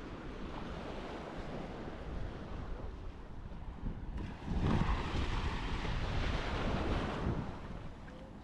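Sea surf washing on the beach with wind buffeting the microphone. A louder rush of surf and wind swells up about halfway through, lasts around three seconds, then eases.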